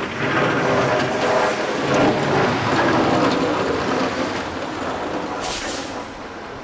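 A heavy vehicle running, its noise slowly fading over several seconds, with a short hiss about five and a half seconds in.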